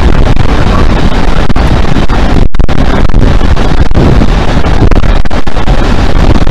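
Two class 47 diesel locomotives with twin-bank Sulzer engines working under power ahead of the train, heard from an open coach window. The sound is loud and rough, with heavy wind buffeting on the microphone, and cuts out for an instant about two and a half seconds in.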